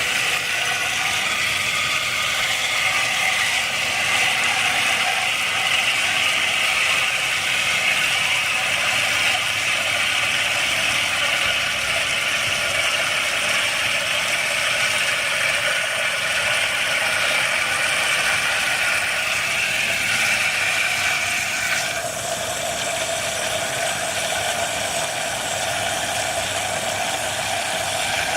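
A pump runs steadily, pushing water through for a flow test. Its pitch drops to a lower, steady note about 22 seconds in.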